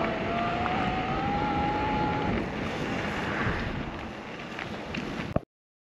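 Husqvarna Hard Cross HC7 e-mountain bike being ridden: wind rushes on the microphone, and a thin motor whine rises slowly in pitch over the first two seconds. The sound ends with a click and cuts off abruptly near the end.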